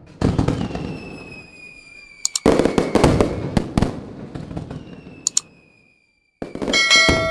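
Fireworks sound effect: three sudden booming bursts, each fading away, with falling whistles and sharp crackling pops between them. Near the end a bell rings out.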